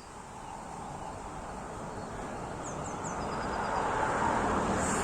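A passing vehicle's steady road noise swells, growing louder throughout. A small bird chirps faintly about three seconds in: three quick falling notes, then a short trill.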